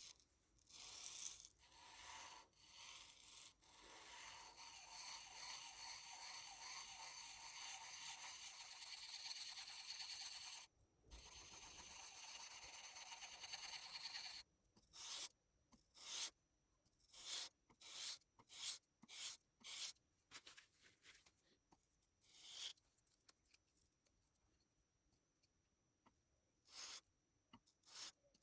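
Steel chisel being rubbed on 400-grit sandpaper laid on glass while it is sharpened: a long spell of steady rubbing in the first half, broken once briefly, then a string of short separate strokes.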